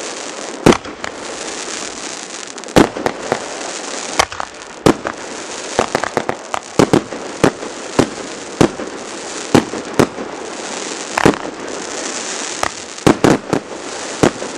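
Fireworks going off: sharp bangs at irregular intervals, about one a second with a few quick clusters, over a continuous hiss.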